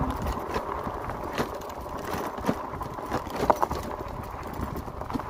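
Four-inch-wide fat tyres of an electric bike rolling over a loose gravel dirt track, crunching on the stones, with irregular clicks and rattles as the bike jolts over bumps.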